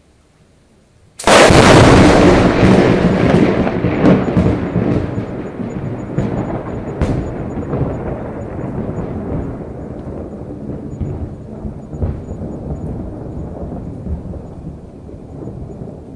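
A close thunderclap from a huge lightning strike: a sudden, very loud crack about a second in, then a long rumble that slowly dies away, broken by a few smaller cracks.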